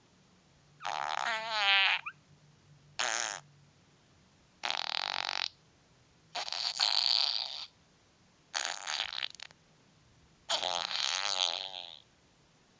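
A series of six farting sounds, each lasting about half a second to a second and a half, with a wobbling, buzzy pitch and short pauses between them.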